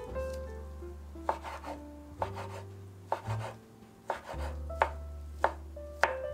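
Kitchen knife chopping sliced ham on a wooden cutting board: a run of sharp, irregular knife strikes starting about a second in. Background music with held notes plays underneath.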